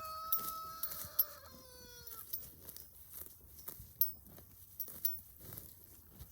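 A rooster crowing: one long held note that falls in pitch and ends about two seconds in, followed by light clicks and rustling.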